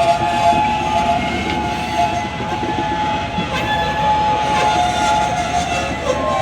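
Kansas City Southern diesel locomotives and rail cars moving during switching: a steady rumble under several sustained high-pitched tones that overlap and shift.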